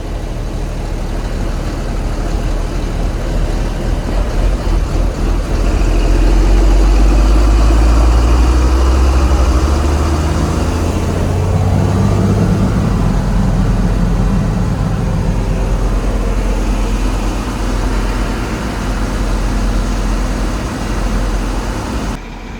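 John Deere 4640 tractor's six-cylinder turbo diesel running while pulling an empty grain cart, heard from the cab with the door open. The engine gets louder about six seconds in, and its note shifts a few seconds later.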